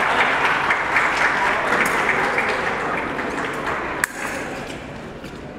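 Spectators' applause and clapping dying away. About four seconds in comes a single sharp metallic click, the épée blades meeting as the fencers engage.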